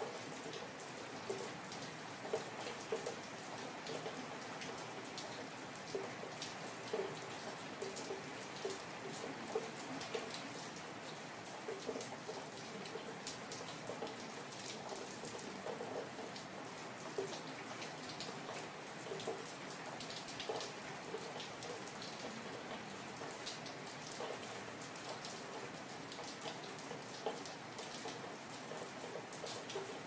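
Steady rain falling on hard street surfaces, with many separate drops striking nearby, some giving short pitched plinks.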